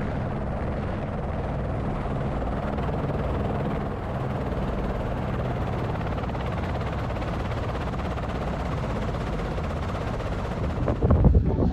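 Airbus AS350 B3e Esquilo helicopter in flight, its rotor and turbine making a constant noise with a steady low drone underneath. Near the end a louder, uneven noise breaks in.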